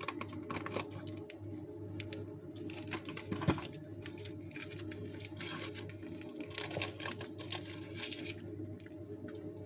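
A small paper sachet being handled and pulled open, giving crinkling, rustling and scattered light clicks, with a steady low hum underneath.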